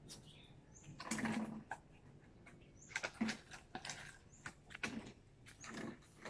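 Faint scuffling, knocking and crinkling of an empty plastic bottle being pushed and mouthed by a beagle and a puppy on a concrete floor, with louder clatters about a second in and again around three seconds.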